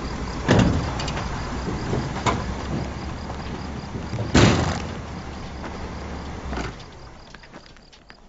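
A vehicle engine hums steadily and stops about two-thirds of the way through, while doors thump several times, loudest a little past halfway.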